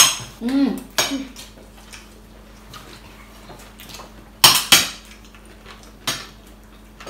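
Metal cutlery clinking and scraping against dinner plates as people eat, a handful of sharp clinks with a louder close pair about four and a half seconds in. A brief voiced sound from one of the diners comes in near the start.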